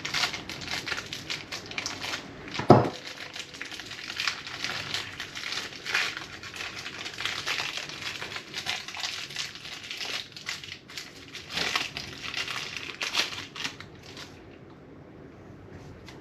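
Plastic packaging crinkling and crushing in the hands as a new fork bushing is unwrapped. There is one sharp knock a few seconds in, and the crinkling stops near the end.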